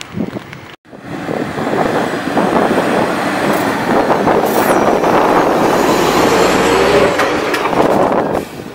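Heavy off-road fire truck driving past close by on a dirt track: loud engine and tyre noise that starts about a second in, builds, holds steady and drops off near the end.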